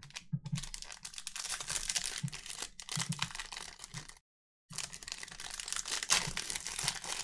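Crinkling and tearing of a foil trading-card pack wrapper being opened and handled, a dense crackly rustle that cuts out for about half a second around four seconds in.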